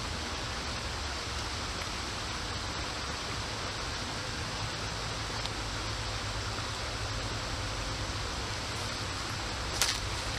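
Creek water rushing steadily over riffles, an even rushing hiss. A single short sharp click near the end.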